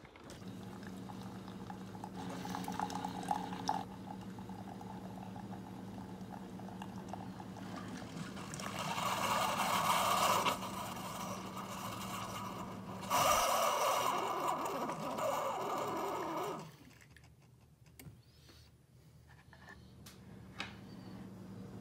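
Single-serve coffee brewer dispensing coffee into a ceramic mug: a steady machine hum under the trickle of the pour, with two louder stretches of rushing noise around the middle. The flow cuts off about three-quarters of the way through and it goes much quieter.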